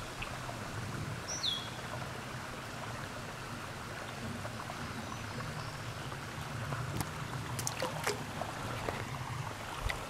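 Steady sound of running creek water, with one short falling bird chirp about a second and a half in and a few light handling clicks around seven to eight seconds in.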